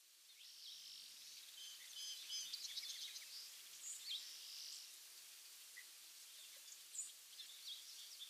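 Faint chorus of small birds chirping and trilling over a steady background hiss, with the calls busiest in the first few seconds and sparser later.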